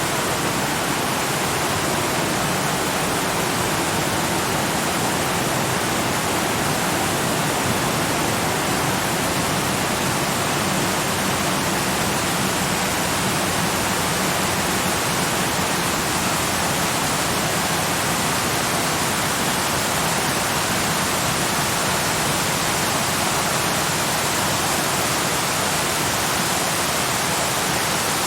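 Waterfall: water falling in a steady, unchanging rush.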